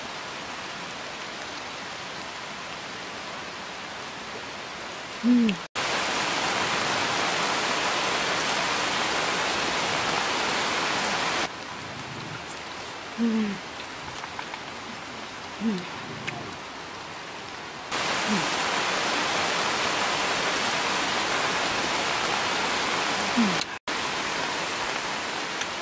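Steady hiss of outdoor background noise that jumps in level at each cut, with a handful of short mouth sounds, each falling in pitch, from eating cooked snails, sucking the meat from the shells.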